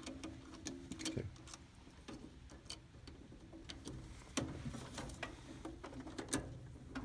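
Scattered light clicks and taps of a screwdriver and stiff wire being worked into a circuit breaker's terminal lug, over a faint steady hum.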